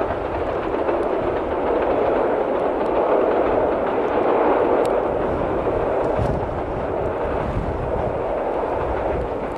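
Diesel-hauled passenger train of an orange Irish Rail locomotive and coaches crossing a viaduct and steel truss bridge: a steady noise of the passing train, swelling slightly in the middle.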